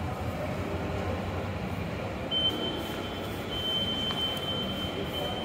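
Steady indoor hubbub of a shopping mall lobby. A thin, high electronic tone starts about two seconds in and holds, with brief breaks, to the end.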